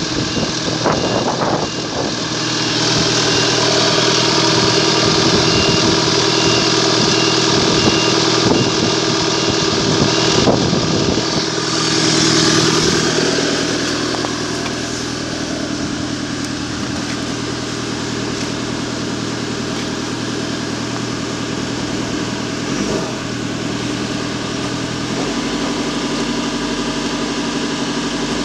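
Toyota 2.4-litre four-cylinder turbo diesel running steadily, heard close up under the open bonnet. About halfway through it becomes quieter and duller, heard from inside the cab, and it holds at around 2,000 rpm near the end.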